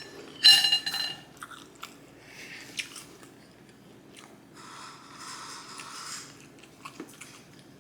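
Close-miked chewing and biting of Hunan shrimp and broccoli, with scattered small mouth clicks. A short ringing clink, like cutlery on a plate, comes about half a second in.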